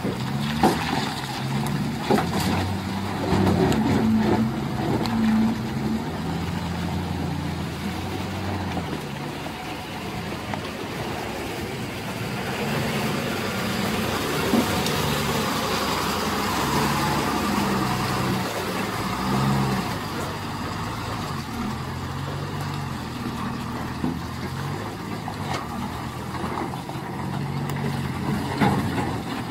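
Diesel engines of Tata multi-axle tipper trucks labouring through deep mud, the engine note rising and falling, with a few sharp knocks.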